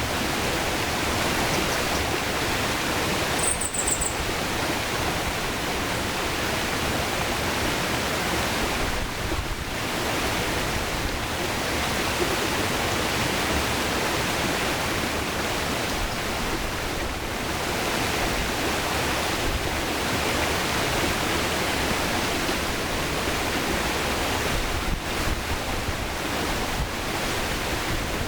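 Mountain river water rushing and splashing steadily over rocks.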